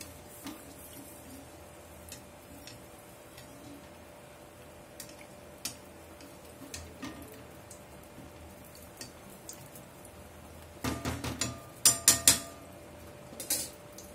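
Oil sizzling steadily as a rava appam deep-fries in a kadai, with light clicks of a steel perforated ladle. Near the end a quick run of louder metal clinks comes as the ladle knocks against the pan and a steel plate.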